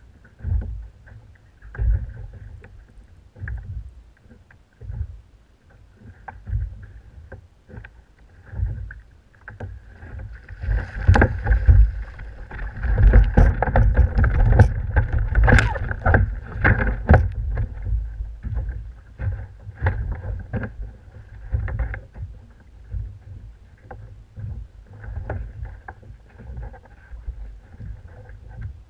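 Water slapping and splashing against a plastic fishing kayak's hull, with knocks on the boat and wind buffeting the microphone. The splashing and knocking grow busiest and loudest from about a third of the way in to just past halfway, while a hooked gummy shark is netted beside the kayak.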